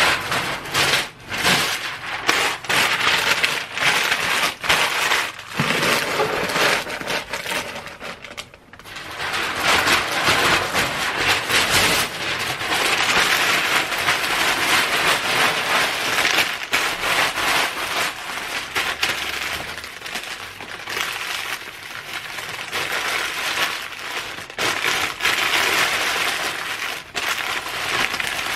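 Sheets of white packing paper being crumpled by hand into wads to fill a shipping box: continuous crinkling and crackling, with a brief lull about eight seconds in.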